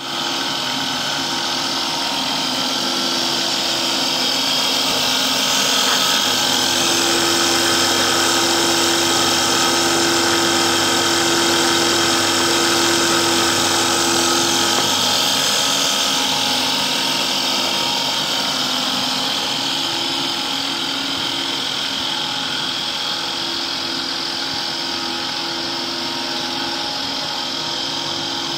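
Electric animal feed extruder running steadily under load while making pellets: a constant machine hum with a strong high hiss, a little louder in the middle.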